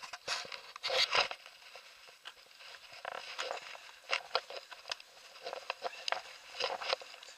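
Handling noise from a small camera being fitted into place, with louder rubbing and knocks about a second in. This is followed by irregular light crackles and clicks as the camera moves along a dirt track.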